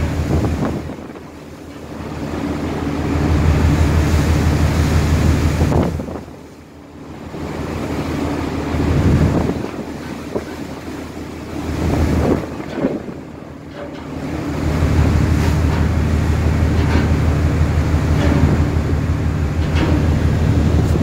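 Wind buffeting the microphone in swelling gusts over the rush of the sea, with a low steady drone underneath.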